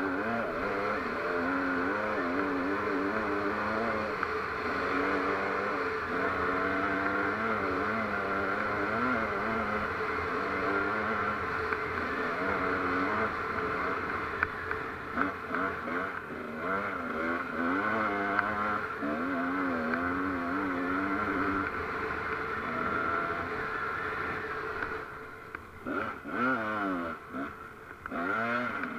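Off-road vehicle engine running under load on a rough dirt track, its revs wavering up and down continuously. About 25 seconds in it drops off and comes back in quick revs, with some clatter.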